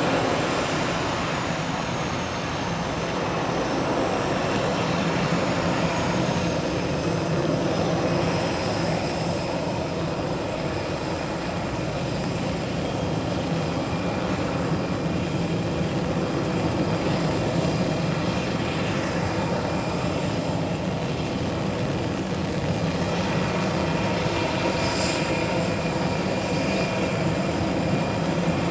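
Airbus A320neo's Pratt & Whitney PW1100G geared turbofan engines running steadily, with a high whine that slowly falls in pitch over the first several seconds.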